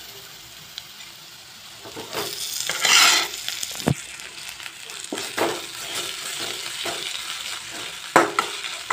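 Ginger-garlic paste and shallots sizzling in hot oil in a kadai, stirred with a steel spoon that scrapes against the pan. The sizzle swells loudest about three seconds in, and a sharp knock of the spoon on the pan follows about a second later.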